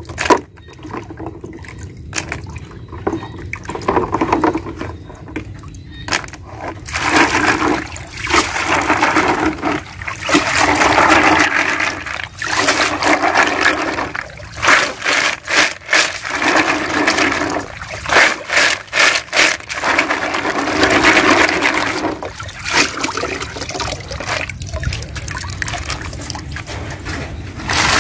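Water sloshing in a plastic basin as a woven bamboo basket of live snails and small clams is swished through it in repeated swells, the shells clicking against each other and the basket.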